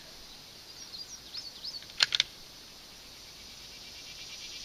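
Outdoor ambience with a few short, high bird chirps, then three quick sharp clicks about two seconds in. A high, steady insect buzz builds toward the end.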